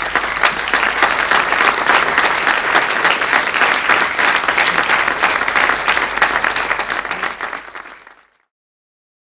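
Audience applause: many people clapping in dense, steady applause that fades away about eight seconds in, then total silence.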